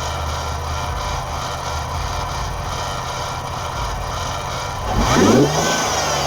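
Infiniti VR30 3.0-litre twin-turbo V6 idling steadily, then revved once about five seconds in, the pitch rising and falling back.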